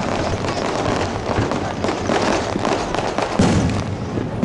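Fireworks display: aerial shells bursting and crackling in quick succession, with a heavier boom about three and a half seconds in.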